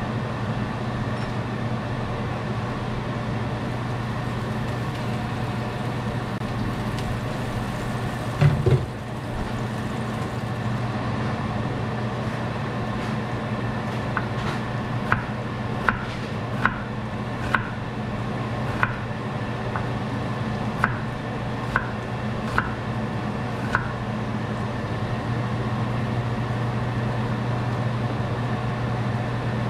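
Knife chopping on a cutting board: about ten light, unhurried taps, roughly one a second, in the second half, over a steady low hum. One heavier thump about eight seconds in.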